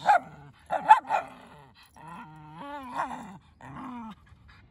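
Miniature schnauzer vocalizing: a few short barks, then longer wavering calls that rise and fall in pitch.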